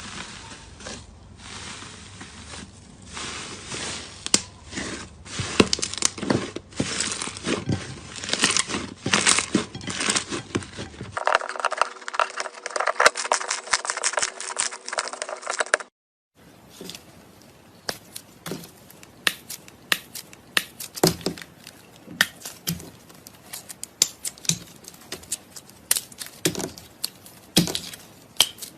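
Slime being squished, pressed and stretched by hand, giving dense crackling with sticky clicks and pops. The sound changes abruptly about 11 s in and again after a brief dropout near 16 s, where the pops become sharper and more spaced.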